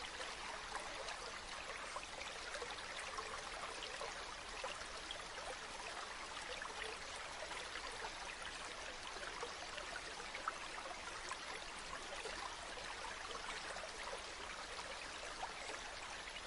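A mountain stream running steadily over rocks, a continuous rushing with many small splashes and gurgles.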